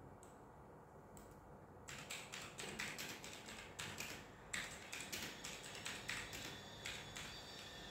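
Laptop keyboard being typed on: irregular runs of quick key clicks that start about two seconds in.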